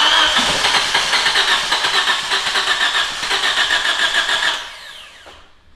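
Nissan Almera N16 1.8 four-cylinder petrol engine catching on its first start after the timing drive has been reassembled. It runs loudly with an even pulsing for about four and a half seconds, then stalls and runs down to a stop.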